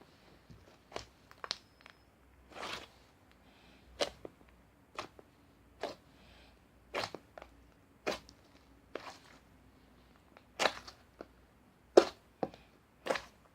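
A string of short, crisp crunches or clicks at irregular intervals, roughly one a second.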